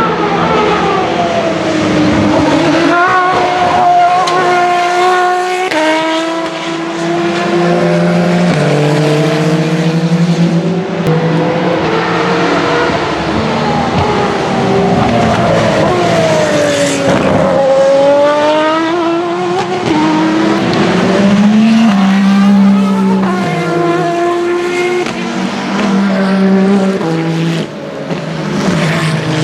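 Hypercar-class endurance prototype race cars (LMH/LMDh) running past on the circuit, their engine notes stepping up and down through gear changes as they brake and accelerate. Near the middle one car's note swoops down and then climbs again.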